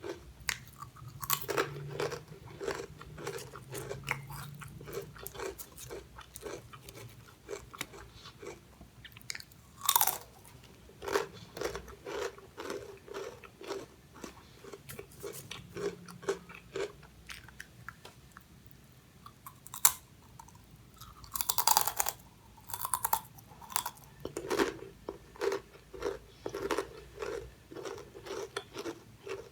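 Close-miked biting and chewing of crunchy fried chips: a steady rhythm of crisp crunches, with a few louder, sharper bites along the way.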